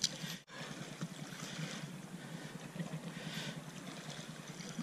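Seaside ambience: steady wind noise on the microphone with small waves washing against the rocks, the sound cutting out for an instant about half a second in.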